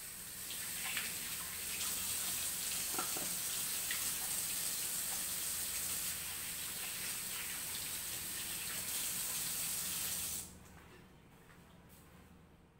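Kitchen tap running into a stainless steel sink, with hands working under the stream. It shuts off suddenly about ten and a half seconds in.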